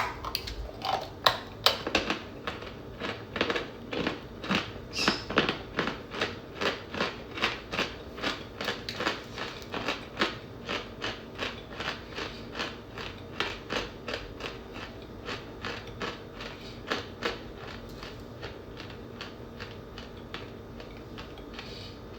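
Close-up crunching of chewed cornstarch chunks (Argo cornstarch), about two crunches a second, fading out near the end.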